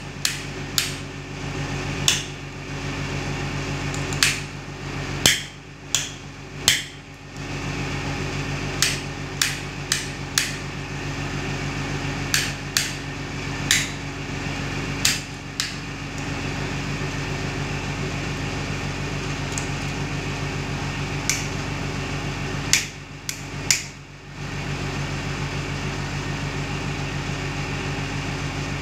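Plastic modular rocker switches being snapped on and off by hand: about twenty sharp clicks in quick clusters, with a pause of several seconds in the middle. A steady low hum runs underneath.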